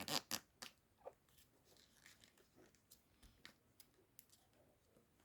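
A sheet of paper being folded and creased by hand: a few crisp rustles in the first second, then faint scattered crinkles.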